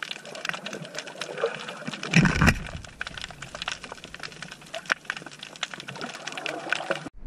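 Underwater crackle recorded from a camera on the seabed: a dense, irregular patter of small clicks, with a brief louder low rush of water a little over two seconds in.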